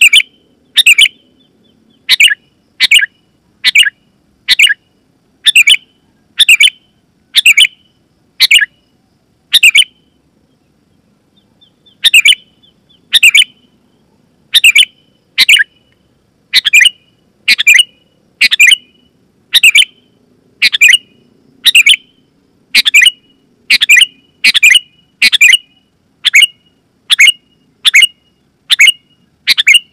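Sooty-headed bulbul calling: short, sharp notes repeated about one to two a second, with a pause of about two seconds roughly a third of the way in.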